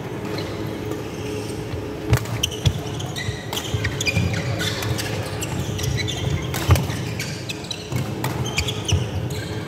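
Badminton rally: sharp, irregular racket strikes on a shuttlecock, the loudest about two-thirds of the way through. Short high squeaks from court shoes on the wooden floor run over a steady low hum from the hall.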